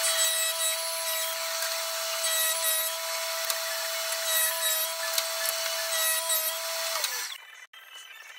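Laguna Fusion 3 table saw running at a steady pitch while ripping a board into strips; about seven seconds in the pitch drops and the sound falls away.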